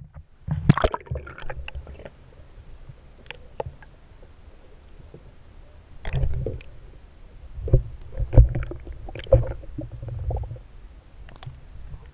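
Irregular knocks and thumps over a low rumble, typical of handling and bumping noise picked up by a GoPro on a small boat. The loudest thumps come about a second in and again several times in the second half.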